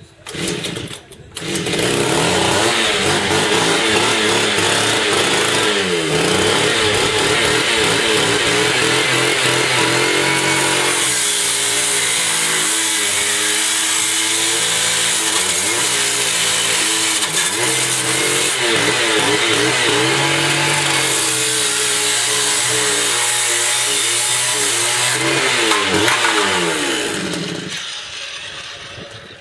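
Power tool cutting through a Suzuki Vitara's steel front cross member, its motor pitch rising and falling as it bites. A short burst at the start, then it runs steadily and winds down near the end.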